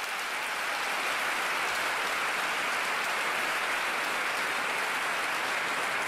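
Large crowd applauding steadily, the clapping building a little over the first second and then holding.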